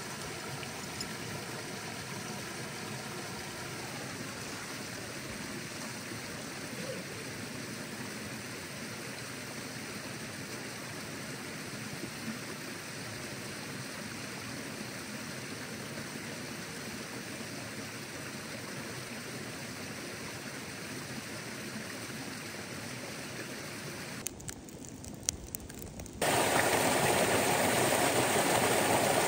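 Creek water rushing steadily over rock ledges. About 26 s in, after a brief quieter break with a few clicks, it gives way to the louder, closer rush of a small waterfall pouring over stone ledges.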